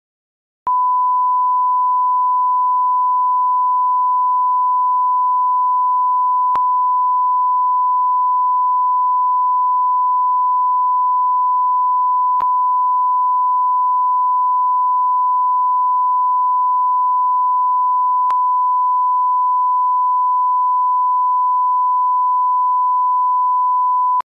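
1 kHz test tone, the steady reference beep that accompanies colour bars, starting just under a second in and cutting off abruptly near the end. Faint clicks come about every six seconds.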